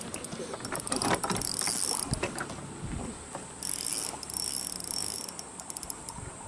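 Spinning reel clicking and ratcheting irregularly while a hooked bass is played on light 4 lb line. A high buzz comes and goes in the second half.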